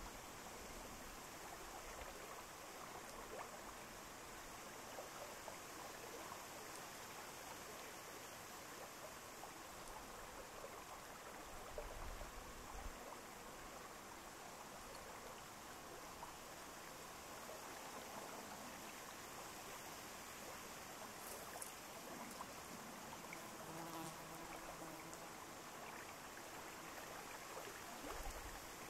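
Faint lakeside ambience: a steady soft hiss with a few low thumps, and a fly buzzing past for a few seconds near the end.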